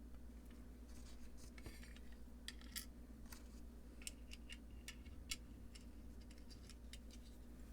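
Scattered light clicks and small metallic ticks of washers and nuts being handled and fitted onto a guitar pedal's potentiometer shafts.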